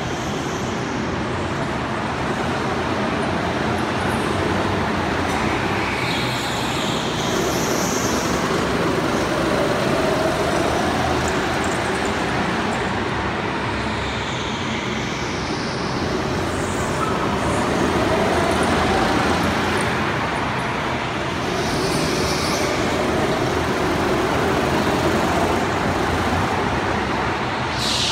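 Go-kart driving at speed around a track, its motor note rising and falling as it goes through the corners. Short high squeals, likely from the tyres, come every few seconds.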